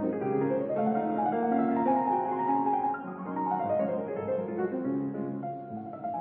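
Classical piano music with quick runs of notes sweeping down and up the keyboard.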